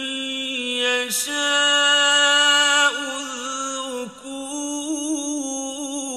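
A man's voice reciting the Qur'an in a slow, melodic chant. He draws out long held notes with small ornamented turns, and the longest, loudest note comes a little after a second in.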